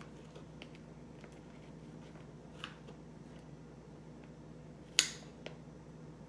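Kitchen scissors snipping through a flat sheet of food: a few quiet snips, then one sharp snap of the blades about five seconds in, followed by a smaller one.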